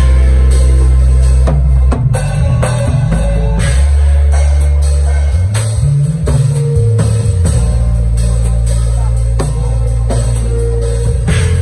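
Drum kit played live along with backing music: bass drum, snare and cymbal crashes over a sustained bass line that changes note every couple of seconds.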